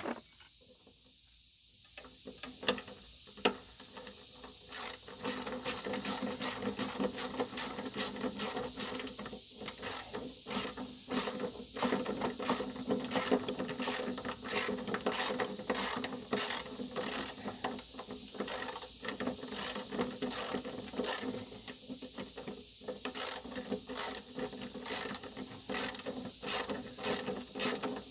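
Socket ratchet wrench clicking as a mower-deck pulley's centre bolt is turned down, in a long run of quick clicks that begins about two seconds in.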